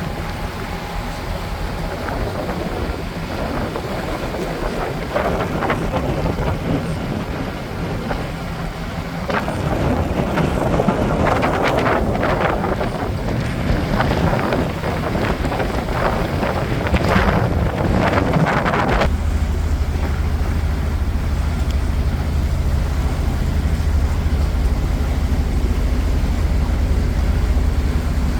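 Cruise boat's engine running under wind buffeting the microphone, with scattered knocks and rustles in the first part. About two-thirds of the way through the sound changes abruptly to a steady low engine hum.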